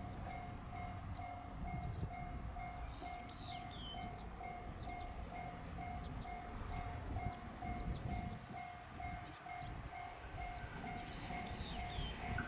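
Japanese railway level-crossing alarm ringing in rapid, evenly repeated two-pitch electronic tones. Beneath it is the low rumble of a train, with a few short high chirps.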